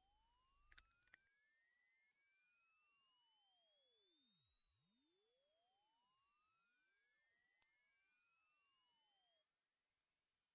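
Hearing-age test tone: a pure sine tone, already very high-pitched, gliding steadily higher toward the top of human hearing, into the pitches that older ears stop hearing. About nine seconds in it drops sharply much quieter and carries on faintly.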